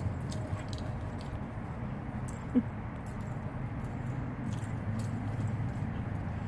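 Small metal tags on a dog's collar jingling in short, irregular shakes over a steady low rumble. There is one short, loud pitched blip about two and a half seconds in.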